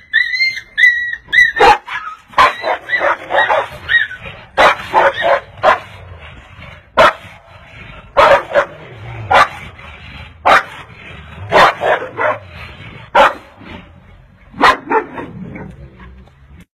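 Dogs yelping and barking: a few high-pitched cries rising and falling in the first couple of seconds, then a run of short, sharp barks and yelps, about one a second.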